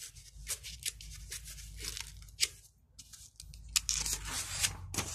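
Pages of a picture book being handled and turned: paper rustling and scraping in a run of short rasps, the loudest a bit under four seconds in as the page is flipped over.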